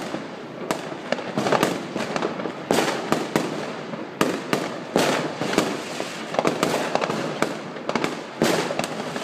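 Dense New Year's Eve barrage of aerial fireworks and firecrackers: sharp bangs and cracks several times a second over continuous crackling from many fireworks going off at once.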